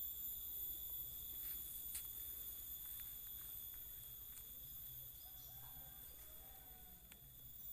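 Insects chirring steadily in high, unbroken tones, over a faint low pulsing hum and a few soft clicks.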